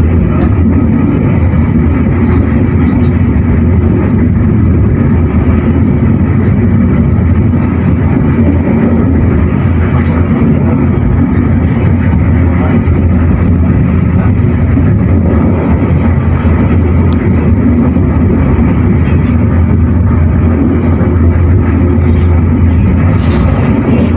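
Commuter train running, a loud steady rumble with a strong low drone that neither rises nor falls.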